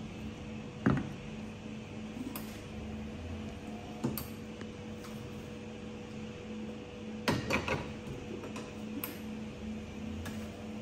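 Espresso-making handling sounds: a metal portafilter and tools knocking and clinking against the counter and espresso machine, a few separate knocks with a short clatter about two-thirds of the way through, over a steady hum.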